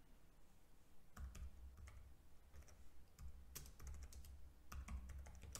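Faint typing on a computer keyboard: an irregular run of key clicks starting about a second in.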